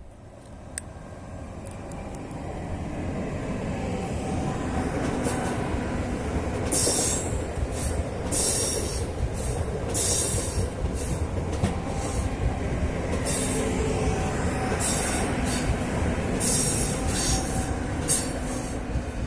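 PESA Dart ED161 electric multiple unit passing at speed. The rumble of its wheels on the rails builds over the first few seconds, then carries repeated short bursts of high hiss and clatter as the train runs by, easing slightly near the end.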